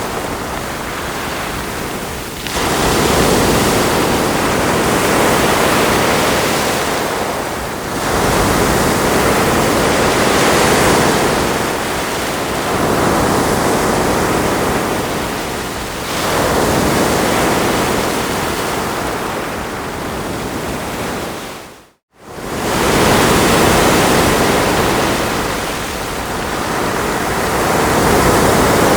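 Ocean surf washing onto a shore: a dense, steady rush of breaking waves that swells and ebbs every five to eight seconds. About two-thirds of the way through, the sound briefly drops almost to nothing and comes straight back.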